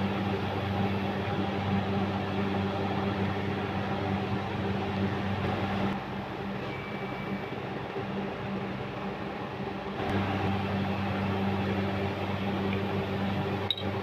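Steady low machine hum, like a motor or fan running. Its deepest part drops away for about four seconds in the middle and then returns.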